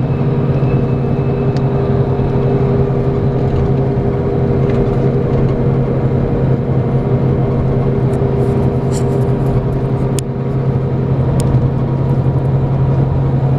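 Scania K410EB6 coach's 13-litre six-cylinder diesel engine running at a steady, unchanging pitch. A few faint clicks and rattles come in between about eight and eleven seconds in.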